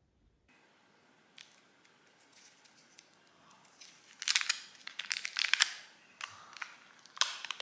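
Foil wrapper being peeled off a stick of butter by hand, crinkling and rustling: soft at first, then a run of sharp, loud crinkles about halfway through and one more near the end.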